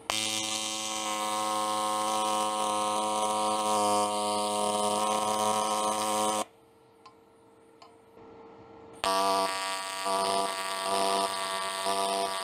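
TIG welding arc buzzing steadily for about six seconds, cutting out for a couple of seconds, then striking again and running with a regular pulsing rise and fall.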